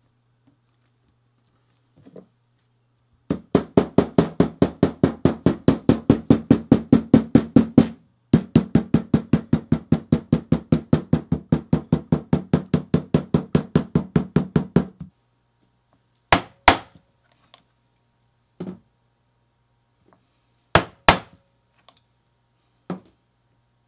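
Hammer tapping along a freshly glued leather seam to press the layers together and set the glue: fast, even blows, about five a second, in two long runs with a short break, then a few single and paired taps.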